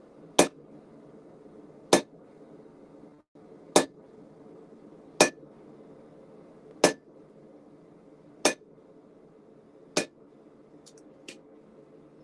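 Blacksmith's hand hammer striking red-hot steel on an anvil: seven steady blows about one and a half seconds apart, the last two lighter, followed by two light taps near the end.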